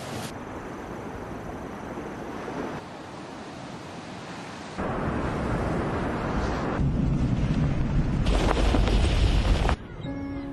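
Sea surf washing onto a sandy beach, with a heavy wind rumble on the microphone. The sound cuts abruptly several times between takes.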